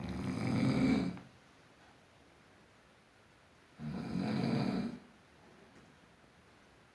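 A sleeping person snoring noisily: two snores, each about a second long, about four seconds apart.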